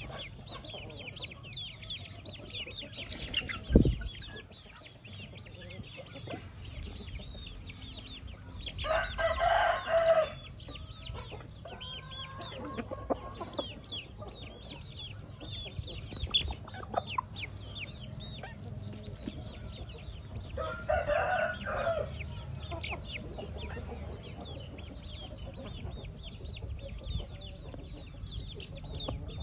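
A rooster crowing twice, each crow short, about twelve seconds apart, over steady high chirping from small birds or chicks. A single low thump about four seconds in.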